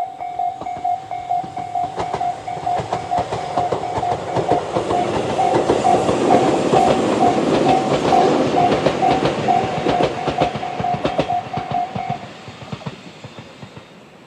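Japanese level-crossing alarm of the Tobu "sound C" electronic type, a repeating ding about twice a second, that stops about twelve seconds in. Under it a Tobu 20400 series electric train passes over the crossing, its wheels clicking over the rail joints; the train noise swells, is loudest midway, then fades.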